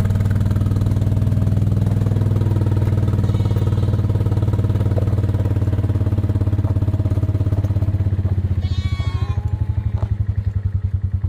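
Small farm vehicle's engine running steadily as hay is hauled across the farm. From about eight seconds in it eases off into a slower, pulsing beat, and a short wavering high-pitched call sounds over it about nine seconds in.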